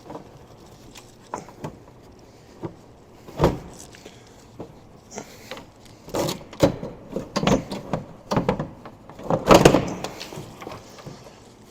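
Irregular knocks, scrapes and rattles of a roof fixture held down with butyl tape being worked loose and pulled off a camper roof, sparse at first and then a busy run of handling noise, loudest about nine and a half seconds in.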